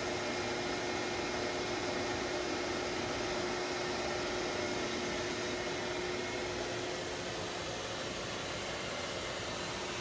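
Shop vac running steadily, its hose nozzle drawn along the clogged fins of an air-conditioner condenser coil, sucking off caked grass clippings and debris. An even rush of air over a constant motor hum, with a faint high whine that drops out about six seconds in.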